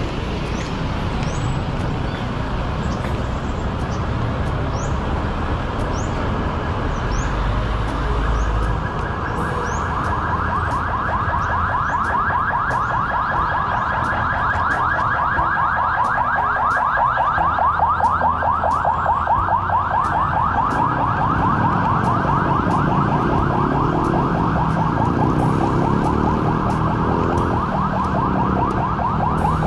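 Street traffic, joined about ten seconds in by a fast, repeating high warble that keeps going, with slower lower sweeping tones in the last third.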